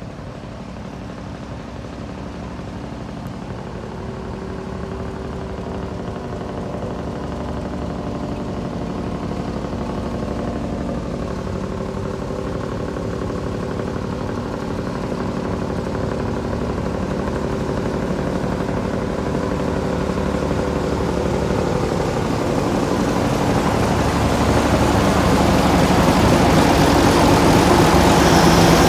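X20 diesel locomotive's engine running with a steady note during shunting. It grows steadily louder as the locomotive draws close, and is loudest near the end.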